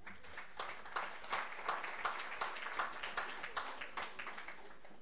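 Audience applauding, a dense patter of clapping that thins out and stops near the end.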